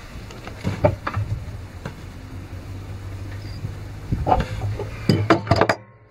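Scattered metallic clicks and taps of an adjustable spanner and hands on a brass LPG hose fitting while the gas connection is tightened, with a cluster of taps near the end. A low steady hum runs underneath.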